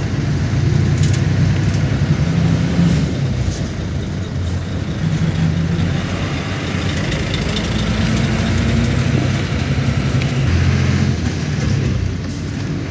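Vehicle engine running with road noise, heard from inside the moving vehicle's cabin. The low drone rises and falls gently in pitch as it drives.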